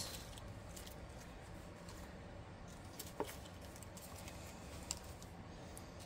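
Quiet room tone with two faint, brief clicks, one about three seconds in and another near five seconds.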